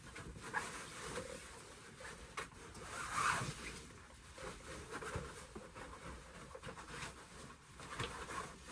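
Rustling and handling noises as the cloth and plastic parts of a large animatronic are moved about, with irregular small knocks and clicks.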